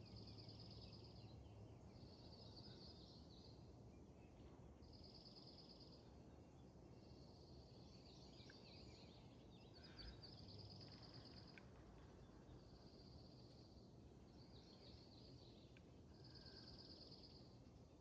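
Songbird singing faintly, a high trilled phrase about a second long repeated roughly every two seconds, with a few other short chirps mixed in, over a low steady outdoor background hum.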